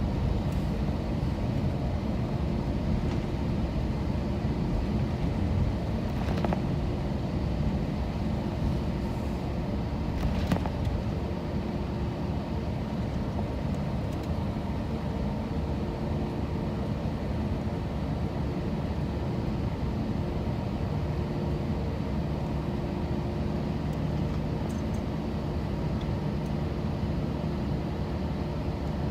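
Steady cabin rumble of an Airbus A321-231 taxiing on the ground, its engines at idle, with a steady hum running through it. Two faint clicks come about six and ten seconds in.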